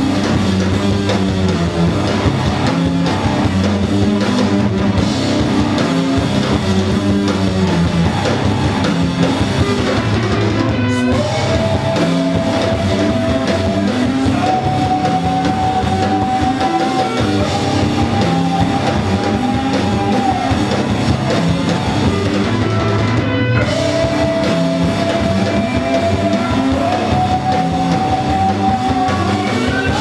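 A live rock band playing: electric guitars, bass and drum kit. From about eleven seconds in, long held high notes step up in pitch over the band, twice.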